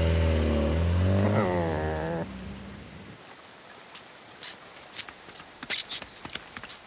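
A low engine hum, briefly rising in pitch, that cuts off about two seconds in. Then faint rain and a string of short, high mouse squeaks from about four seconds in.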